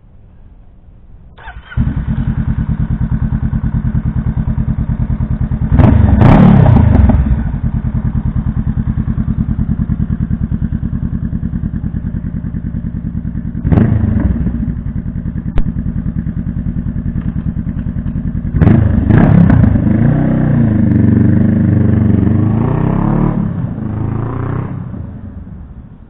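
Honda Rebel 500's parallel-twin engine running through an aftermarket K-Speed exhaust. It starts up about a second and a half in and idles with a deep, even beat, then revs loudly once about six seconds in. Later the bike pulls away, the note rising and falling as it accelerates, and fades into the distance near the end.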